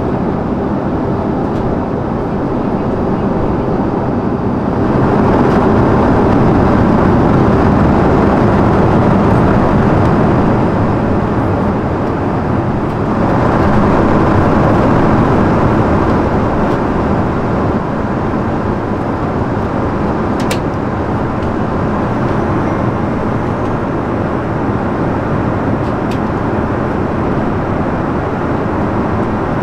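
Steady cabin noise of an Airbus A340-300 airliner in flight, the even roar of engines and airflow, growing a little louder about five seconds in and again near the middle. A couple of faint clicks in the second half.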